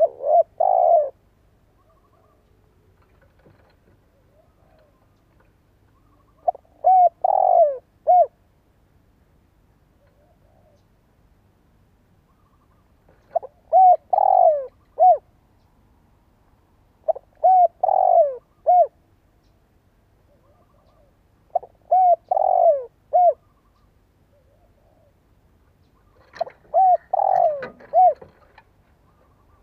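Spotted dove singing: six phrases of three or four low arched coos, each phrase about a second and a half long, repeated every four to seven seconds.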